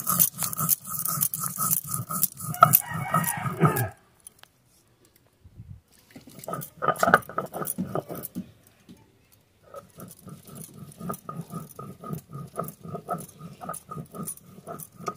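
Stone grinding turmeric on a flat stone grinding slab (shil-pata): steady back-and-forth strokes, about three a second. The strokes stop for about two seconds a third of the way in, then resume.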